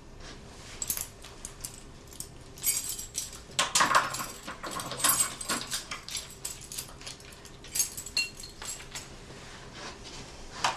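Keys jangling with a long run of quick metallic clicks and rattles as a front door's locks are undone.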